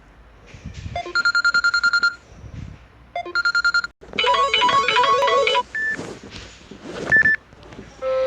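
Samsung Galaxy Tab A6 7.0 tablet ringtones playing one after another, each cut off after a second or two. A fast beeping tone sounds twice, then a busier melodic jingle, then two short single notes, and another ringtone begins at the end.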